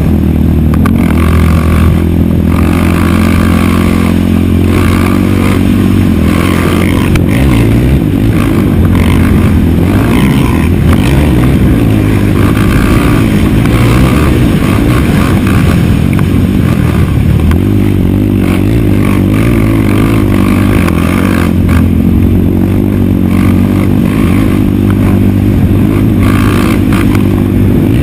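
Race quad engine running hard on a dirt track, its pitch rising and falling as the rider works the throttle and gears.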